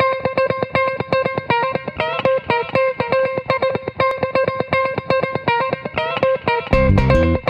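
Background music: a fast, repeating plucked guitar riff, with low bass notes coming in near the end.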